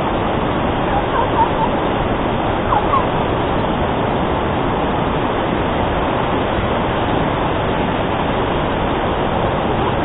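Steady rushing of a large waterfall, an even wash of falling-water noise.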